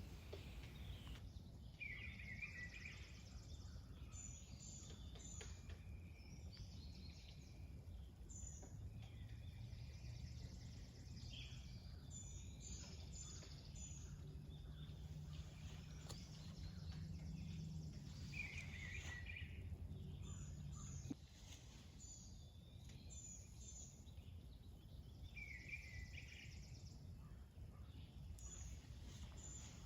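Faint woodland birdsong: scattered short calls and high chirps from several birds over a low steady hum, which stops about two-thirds of the way through.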